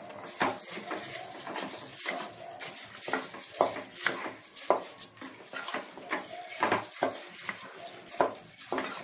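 A spoon stirring rice and masala in a pressure cooker pot as they fry, scraping and clacking against the pot about twice a second.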